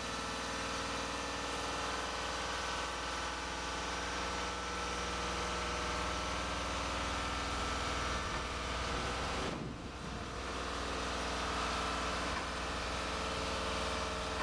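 A steady machine hum that holds a constant pitch, dipping briefly about ten seconds in.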